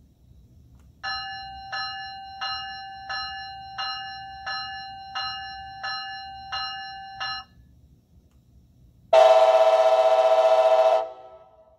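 Bachmann HO-scale ALC-42 Charger model's sound decoder playing its locomotive bell through the onboard speaker: about ten even strikes, roughly one every 0.7 s. After a short pause it plays a single long horn blast of about two seconds, several tones sounding together, which cuts off sharply.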